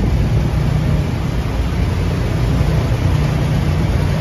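Steady low engine rumble of a small boat under way, mixed with a hiss of wind and choppy water.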